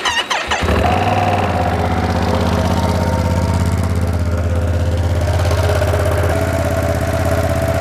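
2025 Ducati Panigale V2S V-twin engine on its stock exhaust, starting up within the first second and then idling steadily.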